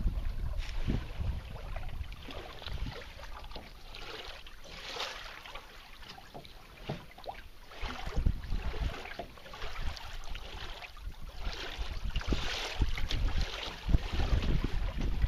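Water splashing and slapping against a sailing canoe's hull as it moves through choppy water, with gusts of wind rumbling on the microphone. Quieter for a few seconds in the middle, busier and louder toward the end.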